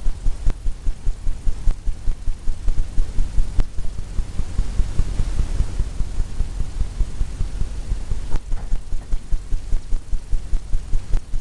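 Paintbrush tapped rapidly against a stretched canvas, giving dull, even thumps about four a second. The thumps soften for a few seconds in the middle under a light brushing hiss.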